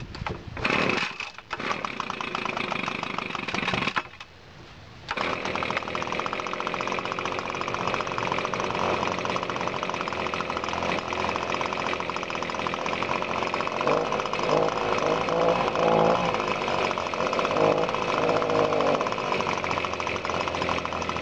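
Echo PB-250LN leaf blower's small two-stroke engine on its first cold start: uneven bursts as it is pulled over and catches, then it runs. About four seconds in it cuts out, then a second later it starts again and keeps running steadily.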